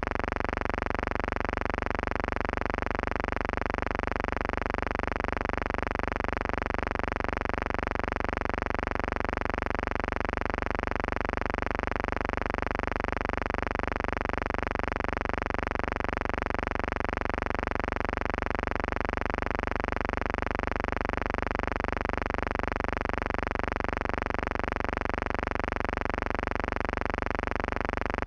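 A steady, unchanging buzzing hum with many overtones and a faint regular pulse, with no shots, explosions or changes in engine pitch.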